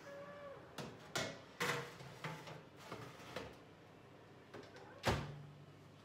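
An oven dish knocking and clattering against the oven rack as it is pushed in, several sharp knocks over a couple of seconds. Then the oven door bangs shut about five seconds in, the loudest knock, with a short low ring after it.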